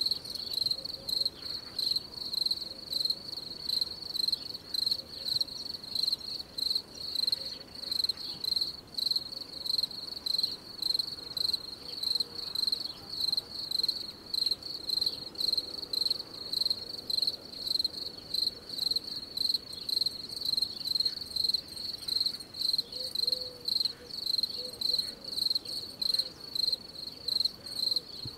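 Night insects, cricket-like, chirping continuously in a steady, high-pitched pulsing rhythm of about three chirps every two seconds.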